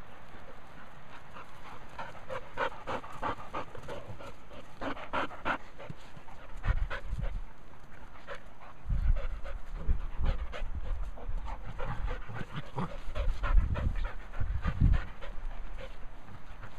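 Dogs panting in quick, rhythmic breaths as they play. Loud bursts of low rumble break in several times in the second half.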